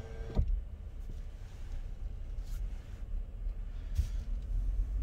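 A car's power window motor whines steadily, then stops with a thump about half a second in as the glass reaches the end of its travel. After that only the vehicle's low cabin rumble remains, with one short click near the end.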